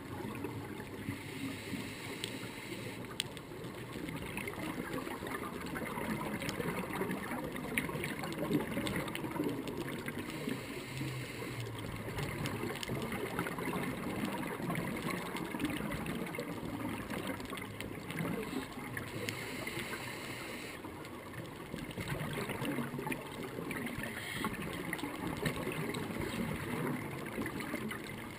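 Muffled underwater sound picked up through a camera housing, with a scuba diver's exhaled regulator bubbles gurgling in bursts every several seconds over a constant low rumble.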